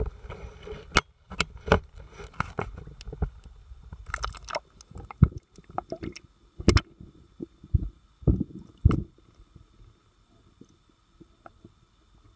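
Water sloshing and splashing around a camera held at and just under the surface, with irregular knocks and thumps against its housing. After about nine seconds it drops to a much quieter, muffled underwater hush.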